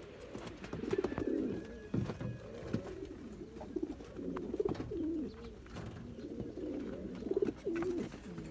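Pouter pigeon cooing over and over, a run of low, rolling coos.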